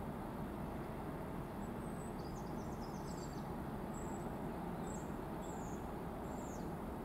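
Class 56 diesel locomotive running steadily in the distance as it approaches, a constant low drone, with a small bird's short high chirps over it from about two to six and a half seconds in.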